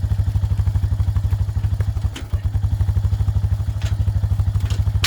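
Arctic Cat four-wheeler engine idling with an even, rapid pulse, with a few light clanks over it in the second half.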